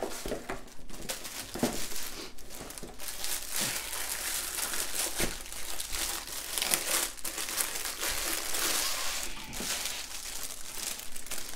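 Clear plastic wrapping crinkling and rustling as it is handled and pulled off a rolled diamond painting canvas, a continuous crackle with many sharper crinkles.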